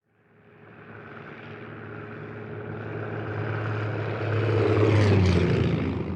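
Fokker D.VII biplane flying past with its propeller engine running: the engine drone fades in and grows louder, is loudest about five seconds in, where its pitch drops as the plane passes, then begins to fade away.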